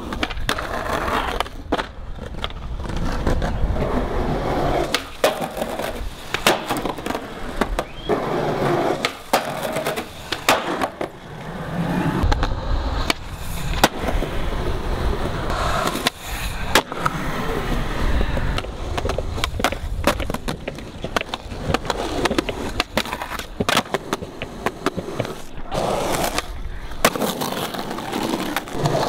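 Skateboard wheels rolling over concrete and rough asphalt with a steady rumble, broken by sharp clacks of the board popping and landing. The sounds come in several separate runs.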